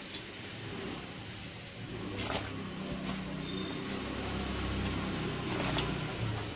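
Aluminium pot of turmeric water boiling hard, a steady bubbling hiss with a low rumble that builds from about two seconds in, as the first raw potato slices go in. Two short clicks sound, about two seconds in and again near the end.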